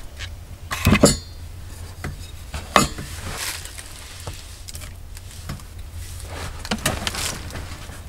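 Cookware and utensils being handled: a few scattered clinks and knocks, the loudest about a second in with a brief metallic ring.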